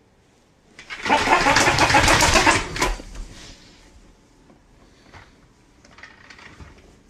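Motorised duck-headed toy on a handle giving a loud buzzing rattle for about two seconds, then fainter rattles and taps.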